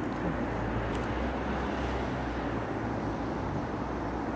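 Steady low rumble of passing vehicles, with an even outdoor hiss over it.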